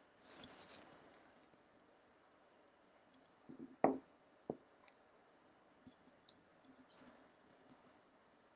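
Quiet room tone with a few short clicks, the loudest about four seconds in and a few fainter ticks a couple of seconds later.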